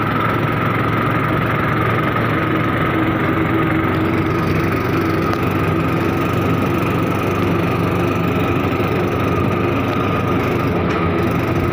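Vehicle engine running steadily as it drives along a road, with a steady whine above the engine note.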